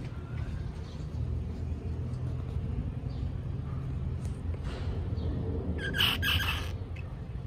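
Baby squirrels give a brief burst of high, squeaky chirps about six seconds in, over a steady low background rumble.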